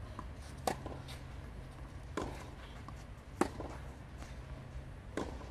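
Tennis balls being struck with rackets during a baseline rally on a clay court: four sharp hits one to two seconds apart, the loudest a little past the middle.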